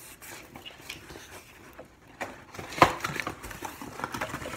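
Cardboard box being tipped and handled, with rustling and light knocks and one sharp knock just under three seconds in.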